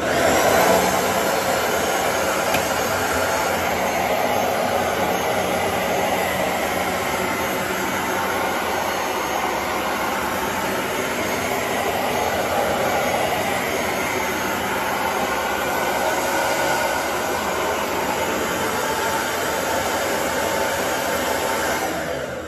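Bissell ProHeat 2X Revolution upright carpet cleaner switched on and running steadily, standing still and not cleaning. It comes on suddenly at full level and is switched off near the end, starting to wind down.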